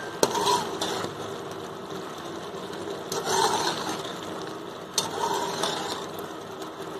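Steel slotted spatula scraping and tapping against a metal pan as ground spices are stirred into chicken cooking in oil: a few sharp taps and two short scrapes, over a steady mechanical hum.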